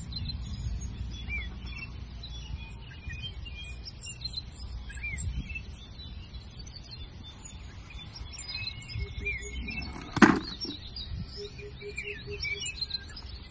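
Small birds chirping over a low outdoor rumble. About ten seconds in comes one sharp clatter, a die-cast metal toy engine dropped into a plastic bucket among other toy trains.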